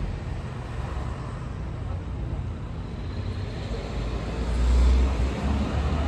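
Street ambience of road traffic: a steady low rumble that swells louder about five seconds in, as a vehicle passes close.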